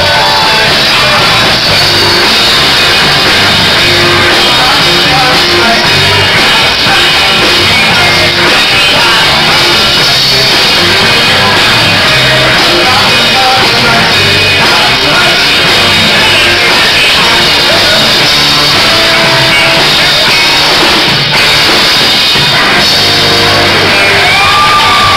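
Live rock band playing loudly, with electric guitar, bass guitar and drum kit.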